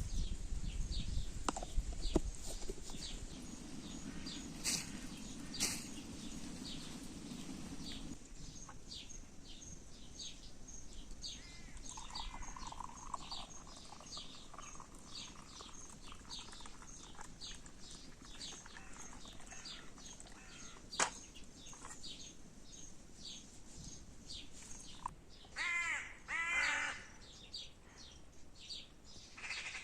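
Birds calling in open country: a run of short, high, rapidly repeated chirps, with two louder, harsh, crow-like calls near the end.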